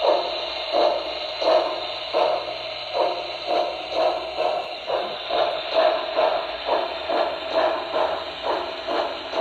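Sound system of a Broadway Limited Paragon 2 HO scale Pennsylvania Railroad 2-10-0 Decapod model steam locomotive, chuffing in a steady rhythm over a continuous hiss. The chuffs come about one and a half to two times a second and slowly quicken.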